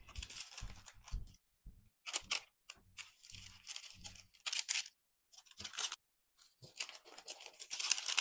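Parchment paper rustling and crinkling in short, irregular bursts as hands move proofed dough rolls on a lined baking tray.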